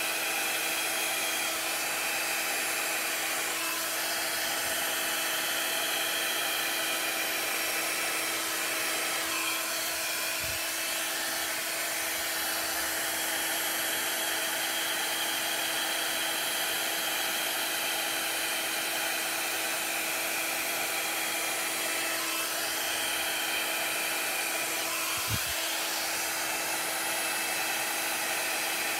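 Small handheld hair dryer running steadily on high, with a continuous rush of air and a constant motor hum, blowing wet acrylic paint outward across a canvas.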